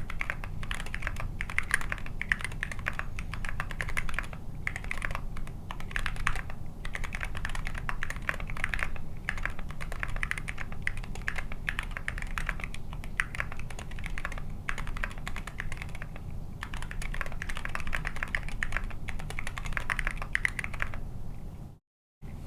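Continuous fast typing on a TKC Candybar mechanical keyboard with Zealio V2 tactile switches, KAT Cadet keycaps and a carbon fiber plate: a dense, steady stream of key clicks and bottom-out clacks. The typing breaks off for a split second near the end.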